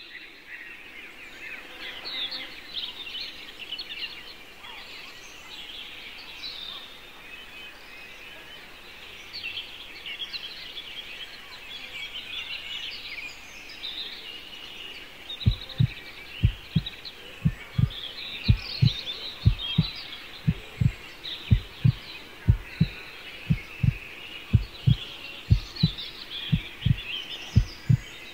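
Woodland birds singing and chirping throughout. About halfway in, a low, heavy heartbeat begins: paired thumps repeating about once a second, louder than the birds.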